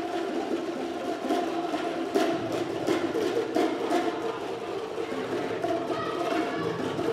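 A group of children striking Boomwhackers, tuned plastic percussion tubes, making a dense run of hollow pitched thunks with repeated sharper hits.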